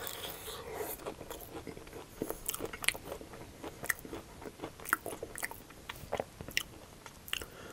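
Close-miked biting and chewing of a crispy fried mashed-potato cake: a crunching bite at the start, then a run of sharp, irregular crunches as it is chewed.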